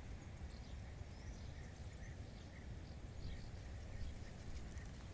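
Faint outdoor ambience: a steady low rumble, like wind on the microphone, with short, faint bird chirps repeating irregularly throughout.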